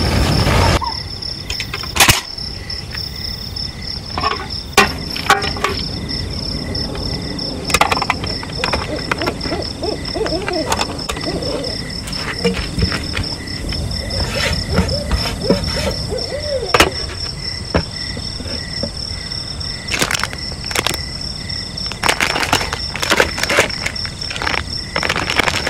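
Wild outdoor ambience: a steady, rapidly pulsing high insect-like trill, with wavering animal calls in the middle and scattered sharp clicks and knocks throughout.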